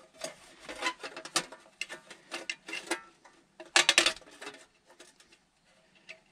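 Sheet-metal base and housing of a Coleman portable butane stove being handled and pressed together: a string of light metal clicks and rattles, with a burst of louder, sharp clacks about four seconds in.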